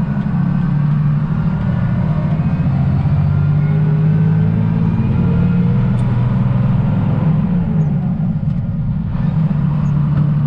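Loaded truck's engine running steadily under load as it drives off, with a slow rise in pitch a few seconds in and a short lull near the end.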